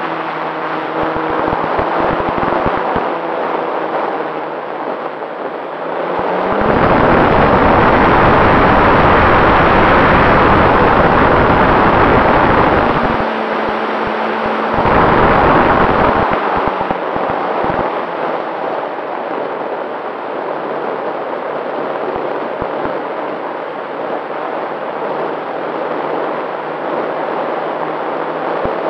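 Wind rushing past the onboard camera of a radio-controlled plane in flight, with its motor and propeller running steadily. Heavy wind buffeting on the microphone comes twice, a long stretch starting about a quarter of the way in and a shorter one around the middle.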